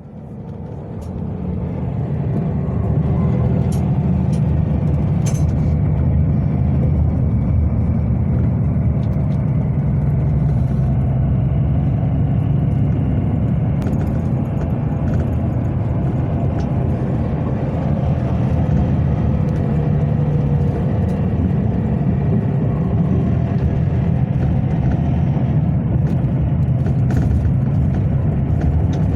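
Passenger bus driving: a steady low engine and road rumble that fades in over the first couple of seconds, with a few faint light rattles.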